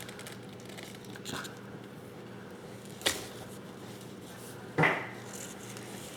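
Quiet handling noise: faint rubbing and scratching, with two brief sharp clicks a little under two seconds apart, the second louder.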